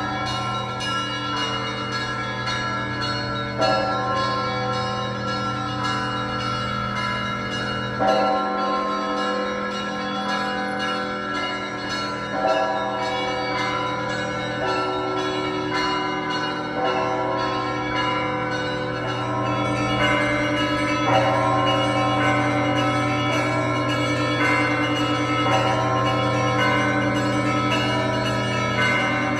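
Russian Orthodox church bells ringing together: rapid strikes on the smaller bells over a deep large bell struck about every four seconds, all of them ringing on and overlapping.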